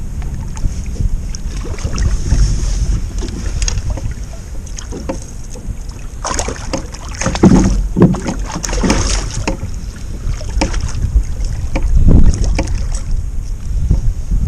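Wind buffeting the microphone in a steady low rumble, with a cluster of knocks and clatter about halfway through.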